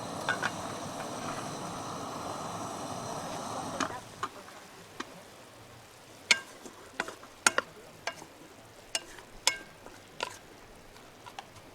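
Food sizzling in a hot pan for about four seconds, then the sizzle drops away suddenly and a utensil clinks and scrapes against the pan a dozen or so times while stirring.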